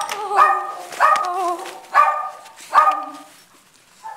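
Border collie puppy giving four drawn-out, wavering yelps about a second apart, then a short one near the end.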